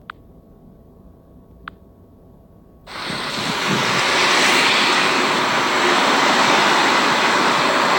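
Two faint clicks over a low hum, then about three seconds in a loud, steady rushing noise comes up quickly and holds, without a clear pitch: the unexplained 'strange sound' heard during the sighting.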